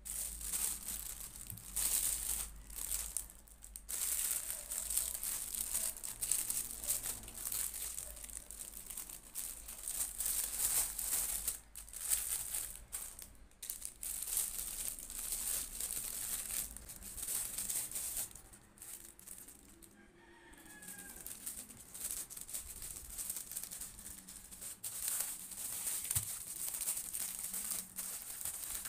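Plastic packaging being handled while orders are packed: continuous crinkling and rustling in irregular bursts, with brief pauses.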